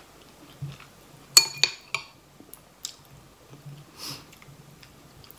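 A metal spoon clinks twice against a ceramic bowl about a second and a half in, the strikes ringing briefly. A few softer taps and quiet chewing come around them.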